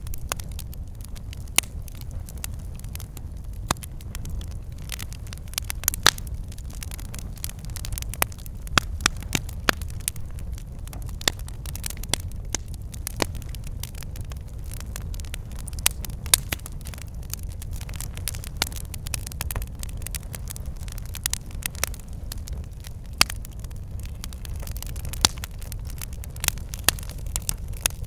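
Campfire burning with a steady low rumble of the flames and frequent irregular sharp crackles and pops of burning wood.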